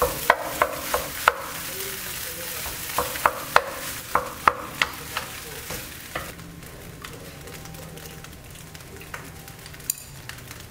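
Rice sizzling as it fries in a wok, with a wooden spatula repeatedly knocking and scraping against the wok as it is stirred. After about six seconds the stirring stops and the frying goes on quieter, with one more knock near the end.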